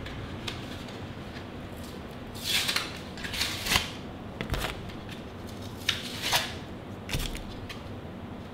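Cardboard backing of a battery blister pack being torn and peeled apart by hand: several short ripping sounds between about two and seven seconds in, with lighter rustles and clicks of card and plastic.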